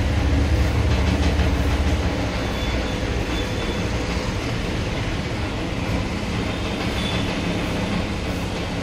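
Areca nut (supari) cutting machine running steadily: a low motor hum under a rapid mechanical rattle, the hum louder for the first couple of seconds.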